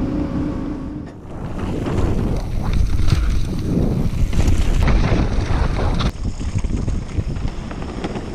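Wind buffeting an action-camera microphone, with a heavy low rumble.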